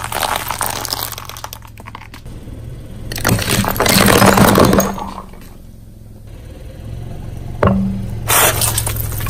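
A car tyre slowly crushing objects one after another, with cracking and squelching at the start and a loud rushing hiss as something bursts a few seconds in. Near the end an aerosol can bursts under the tyre: a sharp pop, then a steady spraying hiss.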